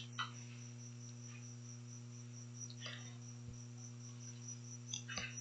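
Faint background noise: a steady electrical hum with a high, thin tone above it that pulses evenly, and a few faint clicks.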